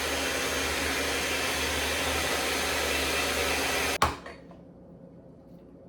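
Electric mixer running steadily, beating eggs into the mixture, then switched off about four seconds in with a sharp click.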